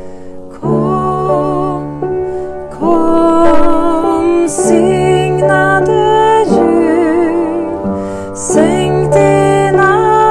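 A woman singing a slow Swedish Christmas song, accompanying herself on a Kawai upright piano. Held piano chords change every couple of seconds under her sung melody, which has vibrato.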